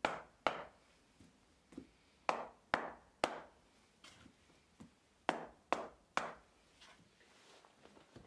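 Wooden mallet knocking end-grain shortleaf pine floor blocks down into their sand bed. The sharp wooden knocks come in sets of two or three about half a second apart, with lighter taps between.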